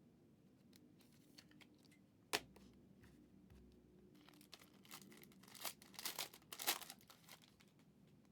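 Trading-card packaging being torn open and crinkled: one sharp snap a little over two seconds in, then a run of tearing and crinkling near the end.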